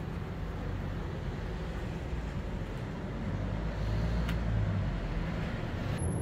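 Low, steady rumble of a running vehicle engine, a little louder about four seconds in, with one brief click.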